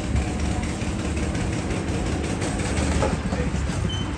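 Go-kart engine running steadily with a low, even drone.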